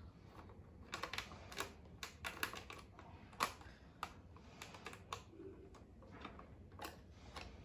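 Irregular clicks and knocks of hard plastic as hands handle and work on a Nerf blaster's parts, about a dozen sharp taps spaced unevenly.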